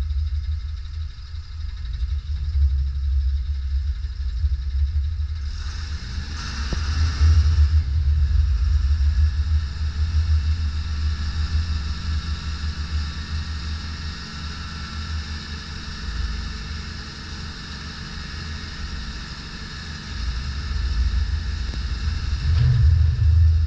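2004 DAF LF55.220 tipper truck's six-cylinder diesel engine running at idle with a steady low rumble while its hydraulic tipping gear raises the dump body. About five seconds in a hiss starts, and a steady high whine then runs alongside the engine as the body lifts.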